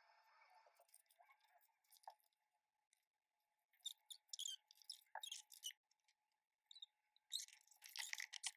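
Faint rustling and crinkling of paper and plastic being handled, with scattered light clicks and two busier spells about four and seven and a half seconds in.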